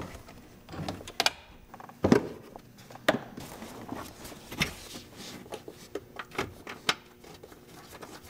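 Plastic underbody splash shield of a Volvo 850 being handled and pushed into place by hand: scattered light clicks and rattles, with louder knocks about two, three and four and a half seconds in.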